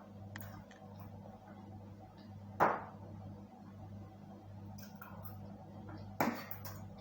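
A metal spoon strikes a plate twice, sharp clinks about three and a half seconds apart, over a steady low hum.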